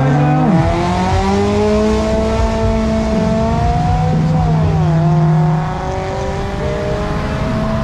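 Drag race car engine accelerating hard away from the start, its pitch climbing steadily, dropping at a gear change about five seconds in, then climbing again.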